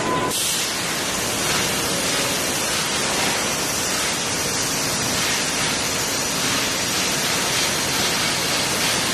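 Steady, even noise of foundry machinery running across a large plant floor, with no distinct knocks or rhythm. A music track cuts off just after the start.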